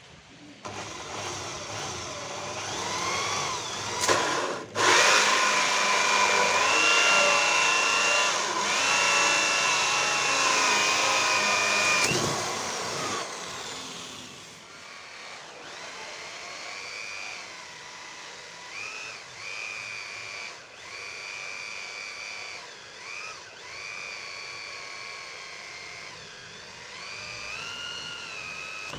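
Circular saw running at high speed with a high whine, loudest for roughly the first twelve seconds, then quieter with several brief dips in pitch.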